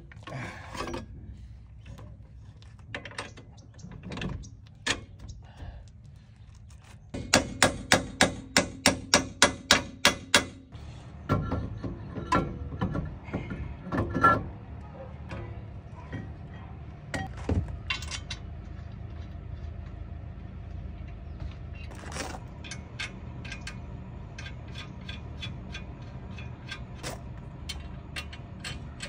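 Hand tools and metal parts clicking and clanking at a Ford Maverick's front wheel hub while the CV axle is refitted, with scattered sharp clicks and, a few seconds in, a quick run of about ten evenly spaced loud clicks, some three a second.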